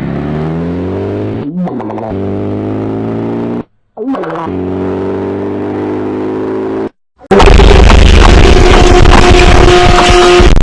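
Homemade emergency-alert-style alarm audio: a low, buzzy tone with many overtones that glides slowly, broken twice by short silences. About seven seconds in it gives way to a loud, harsh, distorted blast of noise with two steady high tones in it.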